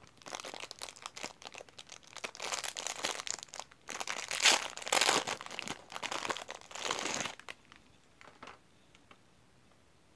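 Clear plastic wrapper crinkling and crackling as it is pulled open and peeled off a macaron. It is loudest about halfway through and stops a couple of seconds before the end.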